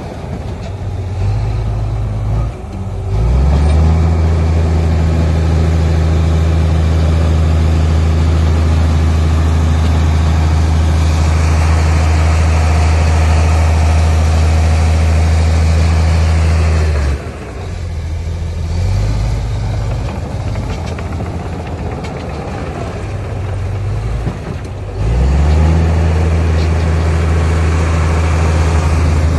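Heavy diesel earthmoving machine engine running hard. It rises to high revs about three seconds in and holds them steady, drops back to a lower speed a little past halfway, and revs up again near the end.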